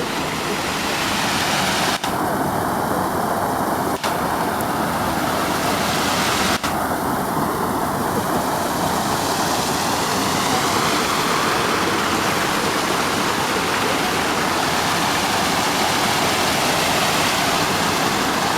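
Steady rush of water falling into a koi pond from a small waterfall, dropping out for an instant three times in the first seven seconds.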